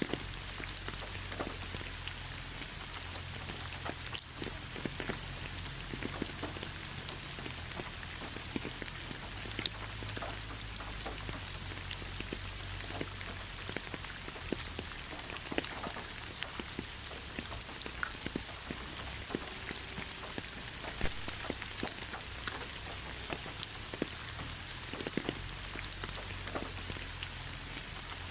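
Steady rain falling, with many separate drops ticking sharply on a surface over an even hiss and a low rumble underneath.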